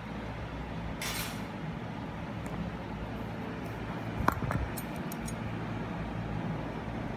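Metal dental instruments clinking: one sharp clink with a brief ring about four seconds in, then several lighter ticks over the next second, over a steady background hum. A short hiss sounds about a second in.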